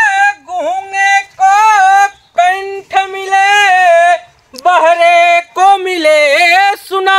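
A high-pitched voice singing a song in long held, wavering notes, phrase after phrase with short breaths between, with no instruments heard.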